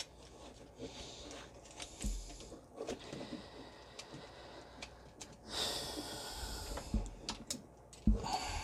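Small clicks and taps of a precision screwdriver working against hard plastic toy parts, with a few soft knocks from handling. About five and a half seconds in comes a long breath out through the nose, the loudest sound here.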